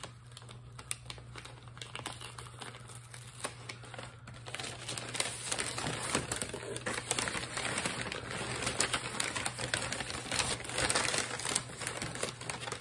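Newspaper wrapping and shredded-paper packing rustling and crinkling as hands pull it apart, with many small crackles. It grows louder about a third of the way in, then stays busy.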